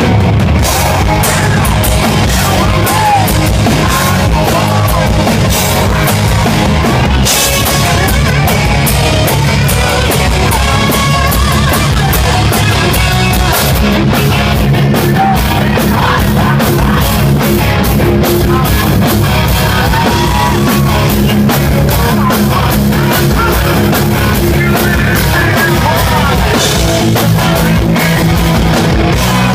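Live hard rock band playing loud: distorted electric guitars, bass and a pounding drum kit, with a male lead vocal singing over them.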